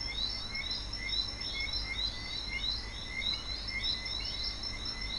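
Outdoor wildlife ambience: many short, falling chirps from small animals, several a second, over a low steady rumble.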